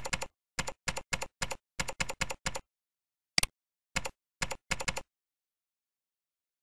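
Typing on a computer keyboard: quick runs of key clicks, then a single sharp click about three and a half seconds in, and a few more keystrokes that stop about five seconds in.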